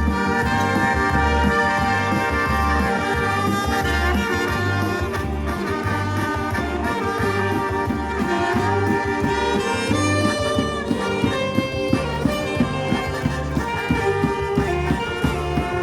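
A band playing a brass-led tune with trumpets and trombones over a steady drum beat.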